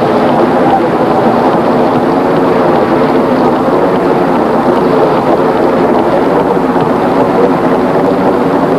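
Audience applauding and cheering, a steady loud mass of clapping and many voices.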